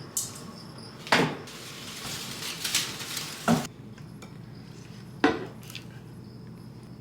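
Household decor items being handled and set down on hard surfaces: about four sharp knocks and clinks, with a stretch of scraping or rustling between the second and third.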